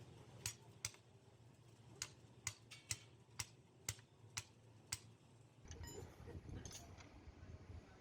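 About ten sharp, faint taps or clicks at irregular intervals, roughly half a second apart, followed near the end by a rougher stretch of scraping or rustling noise.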